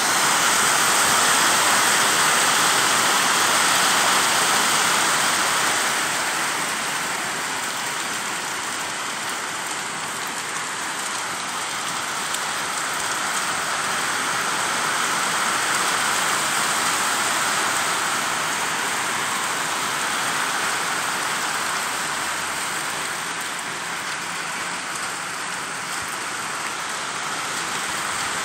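Heavy rain pouring steadily onto wet pavement, a dense even hiss that eases slightly after about five seconds.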